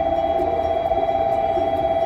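Steady electronic warning tone at a railway platform, a held pair of notes with a fast flutter, over a low background rumble, sounding as a train approaches.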